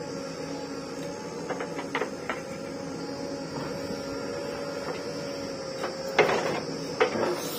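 JCB 3DX backhoe loader's diesel engine and hydraulics running with a steady whine as the arm lifts and swings. About six seconds in, the bucket dumps soil and stones into the tractor trolley with a loud rattling crash, and a second, shorter one follows about a second later.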